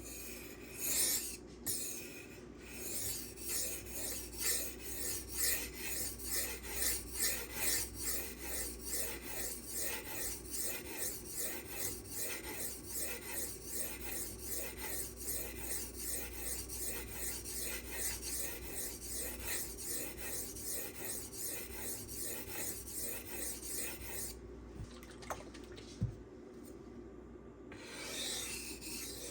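M390 steel knife blade stroked back and forth on a silicon carbide sharpening stone, about two scraping strokes a second. The strokes stop for a few seconds near the end, with a single knock, then start again.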